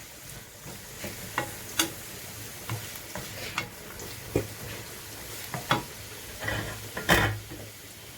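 Onion and green pepper frying in oil in a pan with a steady sizzle, while a utensil stirs and knocks against the pan in irregular sharp clicks, the loudest about seven seconds in.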